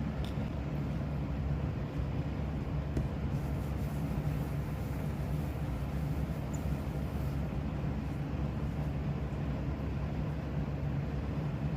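A steady low mechanical hum with no change in level.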